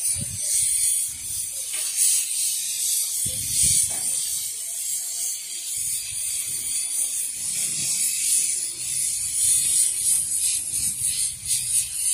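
Cicadas chirring: a steady, high-pitched rasping drone that flickers but never stops, with a few low thumps in the first few seconds.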